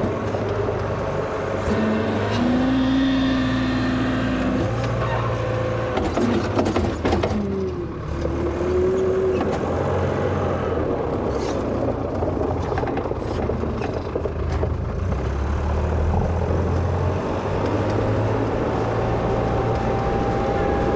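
A 1963 Volvo BM LM225 wheel loader's diesel engine runs steadily, with a whine that changes pitch now and then. A run of clattering knocks comes about six to seven seconds in.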